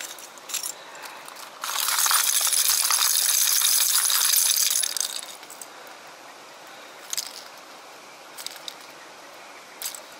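Fishing lures and hooks clattering in a plastic tackle box as it is rummaged through: a loud rattle lasting about three seconds, then a few separate clicks.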